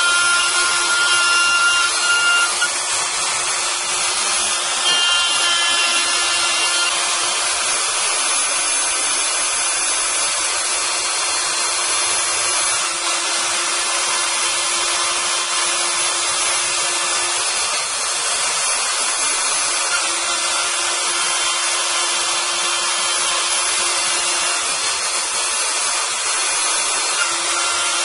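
Kress spindle motor on a Stäubli TX60 robot arm running at high speed while its end mill cuts into a block: a steady motor whine under a continuous hissing cutting noise. A few brief higher whistling tones come in the first several seconds.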